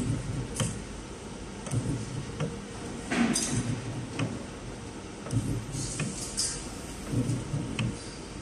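Automatic soldering machine at work: irregular low thumps and sharp clicks, with short hissing bursts every second or two.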